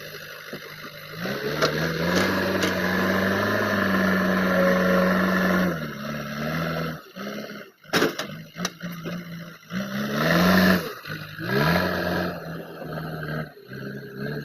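JCB 3DX backhoe loader's diesel engine revving up about a second in and holding high for several seconds, then dropping back. It revs up twice more in shorter bursts near the end, with a few sharp knocks in between.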